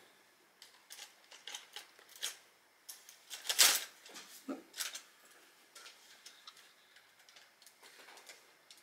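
LEGO Technic plastic parts clicking and knocking as the truck's bodywork is set onto the chassis and pressed into place: scattered light clicks, with one louder clack about three and a half seconds in.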